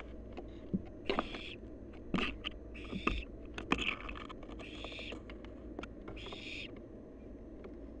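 Barn owl nestlings hissing: a series of short, raspy hisses, about one every second and a half, the 'snoring' begging call of young barn owls. Sharp knocks and scuffs of feet and wings on the wood-chip floor of the nest box come between them.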